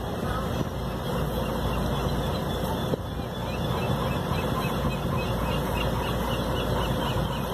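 Steady rumble of a boat's engine with wind noise on the microphone.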